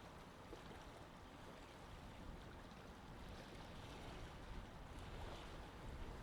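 Faint, steady sea ambience: wind and water noise with a low rumble.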